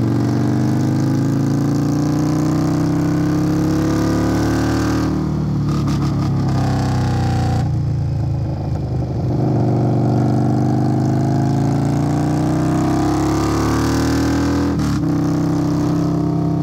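Indian Scout Bobber's V-twin engine running through a Hacker Custom Mayhem aftermarket exhaust while riding, its note climbing under throttle and dropping back several times, with clear breaks near five and fifteen seconds in.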